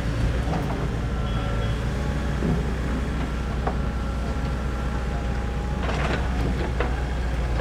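Doosan DX140LCR-5 short-radius excavator working, its diesel engine running with a steady low hum and a faint high whine over it. A few sharp knocks come close together about six seconds in.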